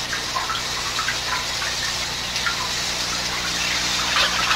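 Handheld shower spraying water steadily, a constant hiss of falling water.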